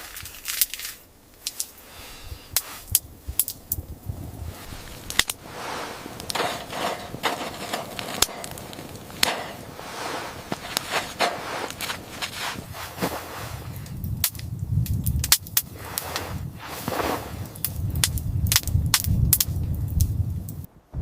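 A quick, irregular series of sharp cracks and snaps, with a low rumble swelling underneath in the second half.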